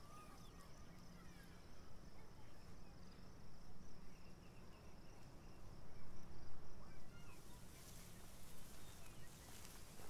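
Faint outdoor ambience of insects trilling steadily at a high pitch. About seven seconds in the trill stops and a soft, even rustling hiss takes over.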